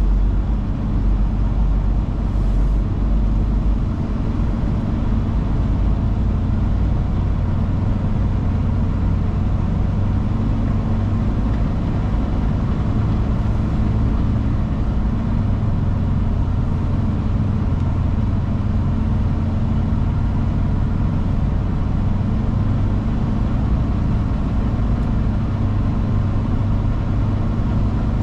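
Semi-truck's diesel engine running steadily on the road, a low, even drone that holds its pitch throughout.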